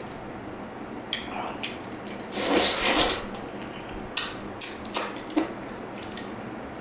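Close-miked eating sounds: a loud rasping burst of a bit under a second, then several short clicks and scrapes.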